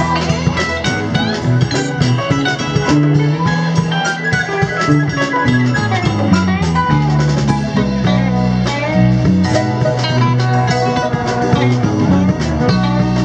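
Live rock band playing an instrumental jam: electric guitars, bass guitar, keyboard and drum kit.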